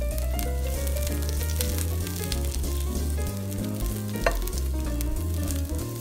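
Silicone spatula scraping and tapping fried onion, garlic and habanero pieces out of a hot frying pan into a glass blender jar, with a sharp click about four seconds in, over background music.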